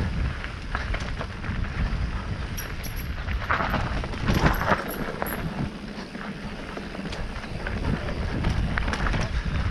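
A mountain bike rolling over a rough trail, with wind rushing over the camera's microphone. Scattered clicks and knocks come from the tyres on stones and the bike rattling.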